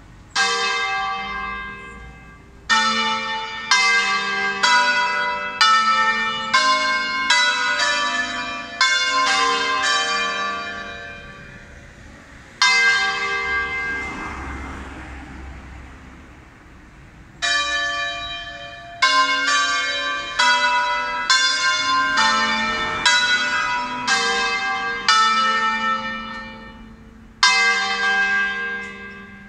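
Church bells rung for Sunday Mass: several bells of different pitches struck one after another in quick melodic runs. Each run is left to ring and die away, and near the middle a single stroke rings out for about five seconds before the next run.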